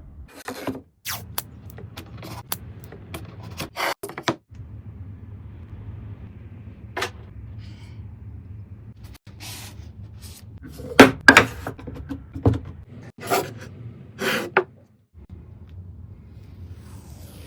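A series of sharp wooden knocks and clicks from pieces of wood and a jig being handled and set down, with a cluster of louder knocks about two-thirds of the way through, over a faint low hum.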